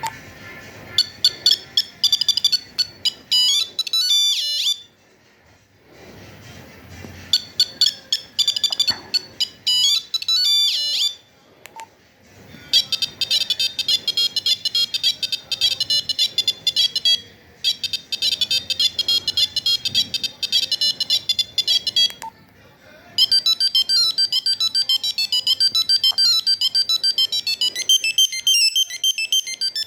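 Nokia 2100 mobile phone playing its monophonic ringtones through its small speaker: quick runs of high beeping notes, one tune after another, with short pauses between tunes.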